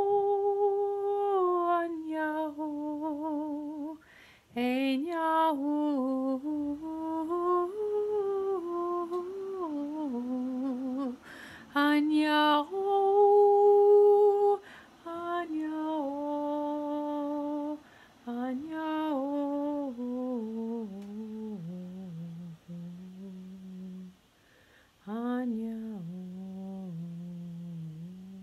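A woman's voice toning: long, held, wordless notes that slide and waver between pitches, with a few short breaks for breath. The notes settle lower in pitch over the last several seconds.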